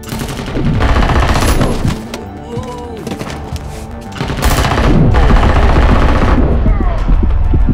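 Loud action soundtrack: music under bursts of rapid gunfire-like sound effects, loudest from about a second in and again from about four seconds in, with a heavy low rumble in the second half.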